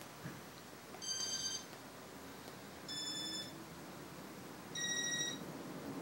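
Three short electronic beeps from a Casablanca Inteli-Touch ceiling fan control, each about half a second long and each a little higher in pitch than the one before, about two seconds apart, as the fan runs through its demo mode. A faint fan hum lies underneath.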